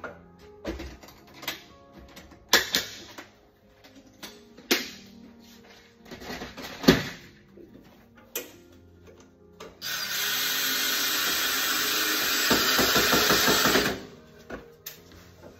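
A cordless drill runs steadily for about four seconds, starting about ten seconds in, with a coarser, pulsing note in its last second and a half as the bit drills through the wooden jig strip into the bandsaw's table. Before it come scattered knocks and clicks of the wood and drill being handled and set in place.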